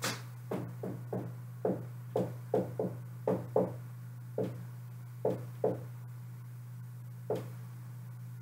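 Dry-erase marker tapping and stroking against a whiteboard as an equation is written: a run of short, irregular taps that thins out after about six seconds, over a steady low hum.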